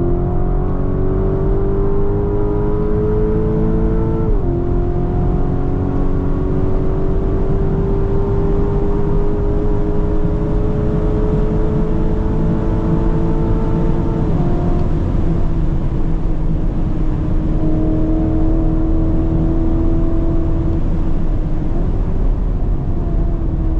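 Lamborghini Urus SE's 4-litre V8 pulling hard at Autobahn speed, its pitch climbing slowly through the gears with upshifts about four and fourteen seconds in, then levelling off, over a heavy low rumble of road and wind noise.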